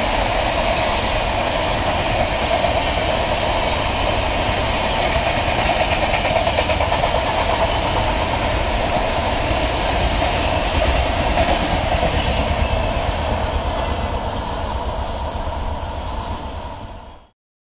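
Humsafar Express LHB passenger coaches passing on the rails: a steady rumble and rush of wheels on track. It eases off as the last coach goes by, then cuts off suddenly.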